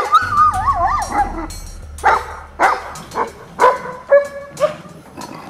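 Two male livestock guardian dogs vocalising in a rank confrontation that is about to become a fight: a wavering, falling whine about a second long at the start, then a string of about six short yelps roughly every half second.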